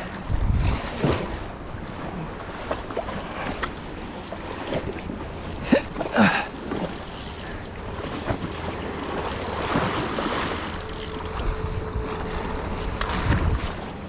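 Wind buffeting the microphone over small waves washing and splashing against jetty rocks, with a few brief clicks and knocks about six seconds in.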